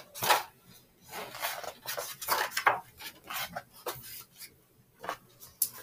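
A picture book being opened and its pages turned and handled: a run of short, irregular rustles and rubs.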